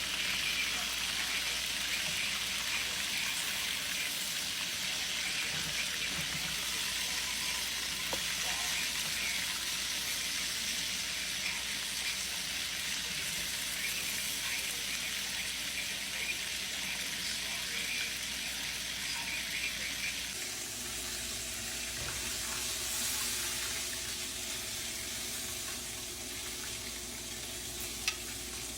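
Chicken cutlets frying in oil, a steady crackling sizzle. About two-thirds of the way through, the crackle gives way to a smoother, steadier hiss.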